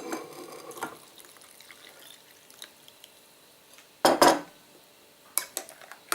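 Hot milk being poured into a bowl of mashed banana and cocoa in the first second, then a loud knock of dishware about four seconds in and a few light clinks near the end.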